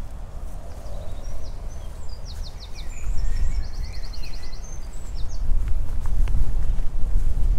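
Songbirds singing in short phrases, with a fast trill of repeated high notes about three and a half seconds in, over a low rumble of wind on the microphone that grows louder in the second half.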